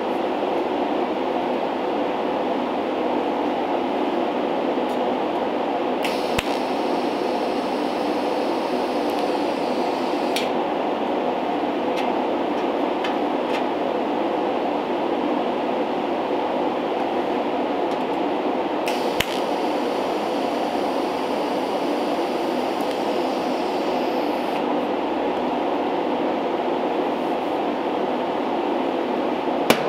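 Steady machine drone, like a shop fan or compressor running, with two stretches of added high hiss about six and nineteen seconds in, each starting and stopping with a click and lasting about five seconds.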